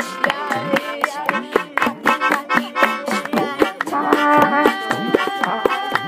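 Live acoustic jam: hand drums and clapping keep a quick, busy beat under a wavering melody line. About four seconds in, held melody notes sound over the rhythm.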